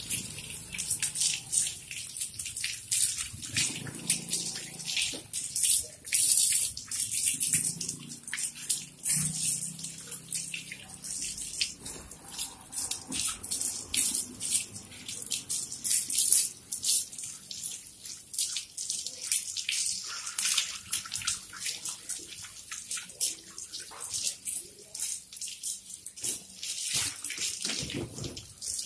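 Water from a garden hose splashing and spattering on a dog's wet coat and onto a tiled floor, uneven and irregular as the stream is moved over the dog.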